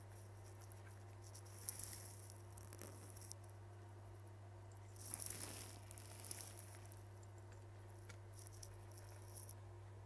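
Faint handling noises at a repair bench: small clicks, crackles and rustles as a phone board and its cable are handled, with one sharp click about two seconds in and a longer rustle about halfway through. A steady low electrical hum runs underneath.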